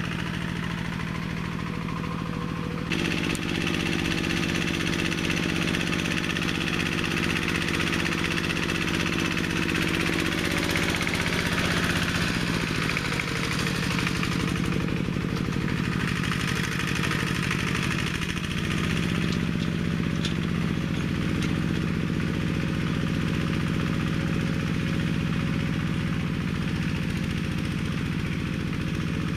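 Engine of a homemade four-wheel-drive minitractor built from a walk-behind tractor, running steadily under load as it drags cultivator tines through the soil. The note gets louder about three seconds in, drops a little past the middle and rises again later.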